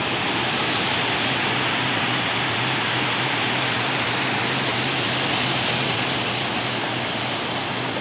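Low sea waves breaking and washing up the shore, a steady rush of surf.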